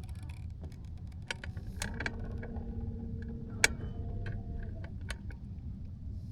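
Scattered clicks and ticks of fishing tackle being handled, typical of a spinning reel being worked, over a low steady rumble, with a steady hum starting about two seconds in and changing pitch before it stops near the five-second mark.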